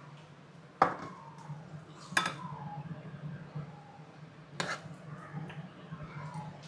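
A serving utensil knocking against a cooking pot and dish three times, the second knock ringing briefly, as thick chicken curry is dished out of the pot.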